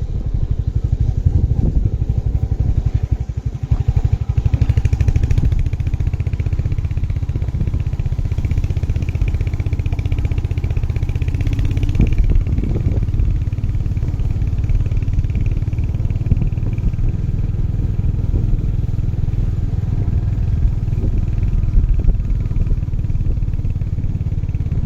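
Royal Enfield 350's single-cylinder engine running steadily at an even, unhurried pace.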